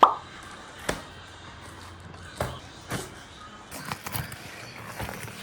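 A handful of separate sharp knocks and thumps, about five over a few seconds, with a quiet background between them.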